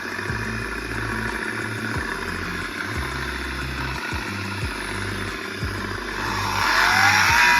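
PPA Brutalle 3.0 JetFlex industrial sliding-gate motor running with an abnormal mechanical noise. Near the end it speeds up with a rising whine and gets louder, the noise growing with speed.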